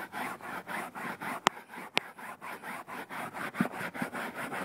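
Handheld scrubber rubbed rapidly back and forth on cloth truck-seat upholstery, about four or five scratchy strokes a second, working in a sprayed-on cleaner. Two sharp clicks about a second and a half and two seconds in.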